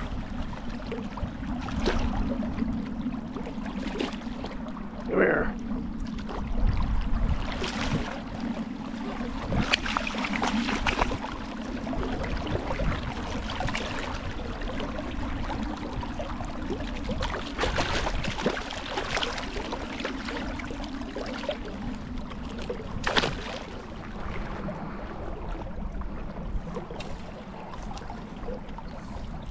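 River current rushing and lapping, with several short splashes of a hooked striped bass thrashing at the surface as it is brought to hand. A steady low hum runs underneath and fades out about three-quarters of the way through.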